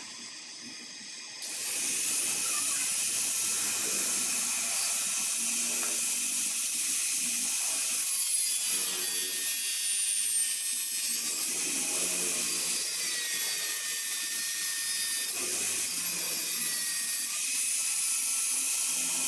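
Oxy-acetylene torch flame hissing steadily as it heats aluminium in a small steel cup. The hiss jumps up about a second and a half in and then holds.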